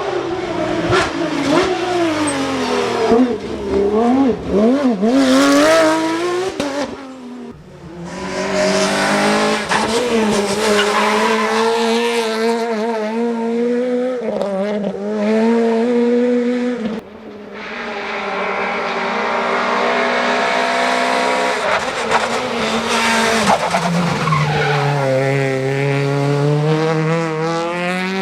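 Rally car engines revving hard, their pitch rising and falling with throttle and gear changes, with tyres squealing. The sound drops out briefly twice, about a quarter and about two-thirds of the way through.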